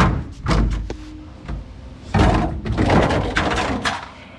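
Knocking and scraping of metal parts being handled as a refrigerator's aluminum condenser coil is worked loose and pulled free, in two spells of clatter.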